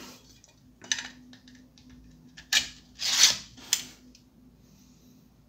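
Hard plastic parts clicking and scraping together as a 3D-printed battery holder is pushed into an airsoft MP5 magazine shell: a sharp click about a second in, then three short rubbing scrapes a little past the middle.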